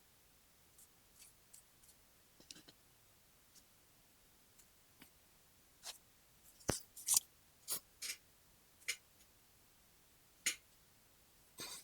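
Scattered short rustling and scraping sounds with several sharp clicks, the sharpest about seven seconds in and most of them bunched between seven and nine seconds.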